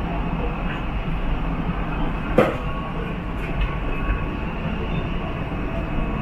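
A Siemens Inspiro metro train running, heard from on board: a steady rumble of wheels on rail, with one sharp click about two and a half seconds in.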